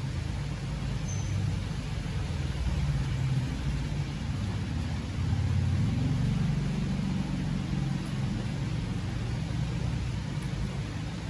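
Steady rain falling, with the low engine rumble of a passing road vehicle that swells to its loudest around the middle and then eases off.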